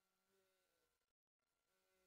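Near silence: only a very faint steady hum, with a brief dropout a little past the middle.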